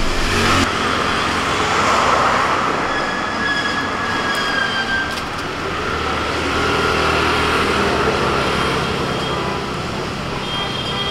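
Steady roadside traffic noise from passing vehicles, with a few brief high tones over it.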